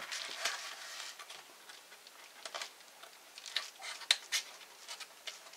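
Pocketknife blade scraping and catching on the paper of a padded mailer envelope, with scattered faint crackles and ticks as the paper is picked at rather than cleanly sliced.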